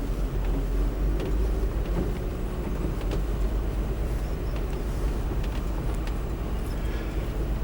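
Mercedes-Benz M-Class SUV driving off road: a steady low engine and drivetrain rumble, with occasional brief sharp knocks.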